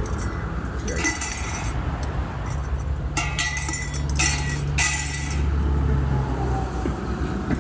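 Impact wrench running in three short bursts, about half a second each, on the lug nuts of a motorhome wheel being removed, over a steady low vehicle rumble.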